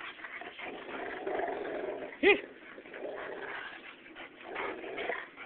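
Two large dogs tussling over a tug rope up close, with rough scuffling dog noises and one short, loud whine about two seconds in.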